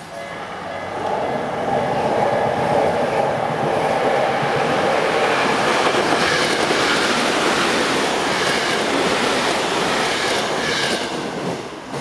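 Tokyo Metro 9000-series electric train passing over a level crossing: the noise of its wheels and motors builds over the first two seconds, stays loud as the cars go by, and falls away near the end. The crossing's warning bell is heard at the very start and again as the train clears.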